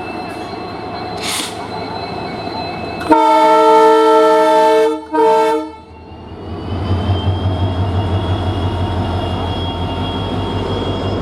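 EMD WDP4 diesel locomotive's 16-cylinder two-stroke engine humming at idle, then its horn sounds a long blast followed by a short one. After the horn the engine throttles up to pull away, with a rising whine over a pulsing low throb.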